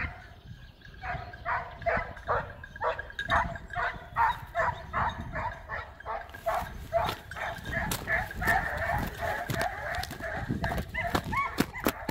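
Swiss hound (Schweizer Laufhund) baying: a quick run of repeated cries, about two or three a second, that runs together into a more continuous howling cry near the end. This is the voice a scent hound gives while trailing game.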